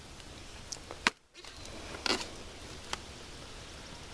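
Small hatchet chopping into a block of firewood: a sharp strike about a second in, another about two seconds in, and a lighter knock near three seconds.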